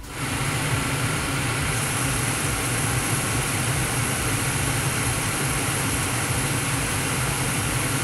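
Gas furnace running with its row of in-shot burners lit: a steady noise with a low hum underneath.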